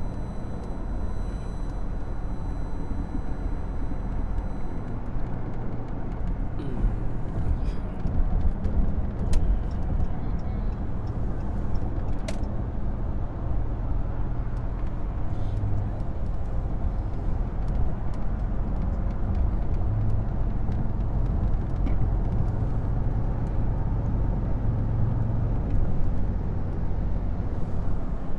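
Steady road and engine noise inside a Chrysler sedan's cabin while it cruises on a highway at about 74 mph: a continuous low rumble, with a few light clicks now and then.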